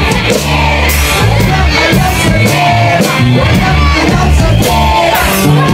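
Band music with drums and a steady bass line, and a voice over it.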